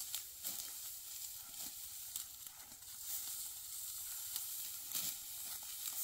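Dry wheat stalks rustling and crackling as they are cut by hand with sickles and gathered: a steady dry hiss with scattered soft crunches.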